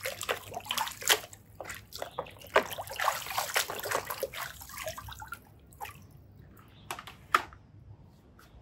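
Hands sloshing and splashing muddy water in a plastic basin while scrubbing a toy, steady irregular splashing that thins out after about five seconds to a few separate splashes and drips.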